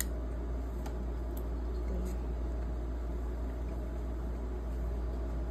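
A steady low background hum, with a few faint, soft clicks of a clear plastic phone case being handled.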